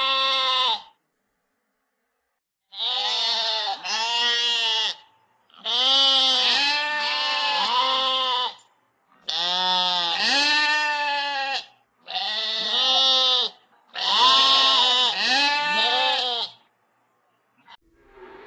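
Bleating of a sheep or goat-type farm animal: a series of loud, wavering bleats about a second each, coming in twos and threes with silent gaps between.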